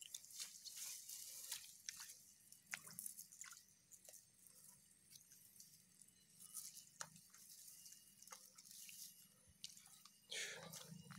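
Near silence with faint, scattered crackles and ticks of dry grass and stalks being disturbed. A brief louder noise comes near the end.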